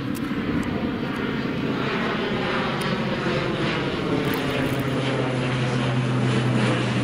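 Twin-engine turboprop airplane flying low overhead, its propellers and engines droning steadily and growing slightly louder as it passes.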